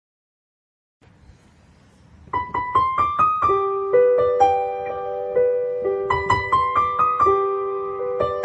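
Background piano music: after a brief dead silence, a gentle piano melody of single struck notes comes in a little over two seconds in and plays on.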